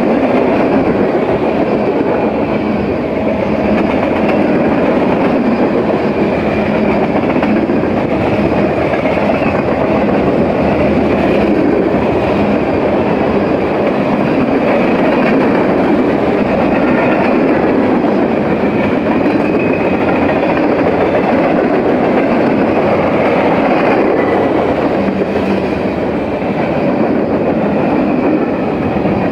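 Freight train cars rolling past close by: a loud, steady rumble and clatter of steel wheels on the rails.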